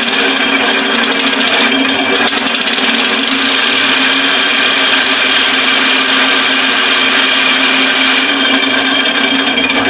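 Homemade compressed-air engine running steadily on shop air through its valve assembly: a loud, continuous hiss of air with a steady mechanical hum beneath it.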